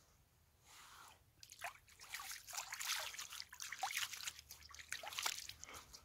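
Shallow water splashing and sloshing as a hand moves through it, a run of quick wet splashes starting about a second and a half in.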